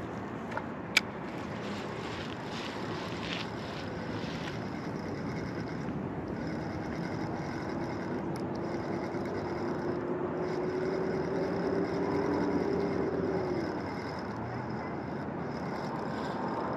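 A distant motor vehicle engine running, its hum rising slowly in pitch and growing louder for several seconds through the middle, then dropping away, over steady wind noise on the microphone. One sharp click comes about a second in.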